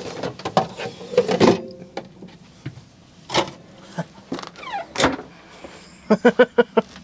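Scattered clicks, knocks and rattles of doors and things being handled in a motorhome's small kitchen while butter is looked for. Near the end there is a quick run of about six short pulses.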